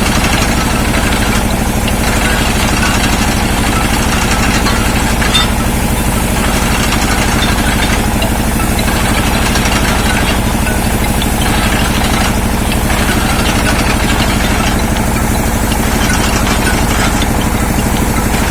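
The engine of an industrial well-drilling rig running steadily at a constant speed.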